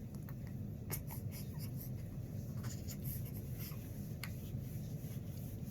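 Soft scratchy rustling and handling noise close to the microphone, with a few scattered light ticks over a low steady rumble.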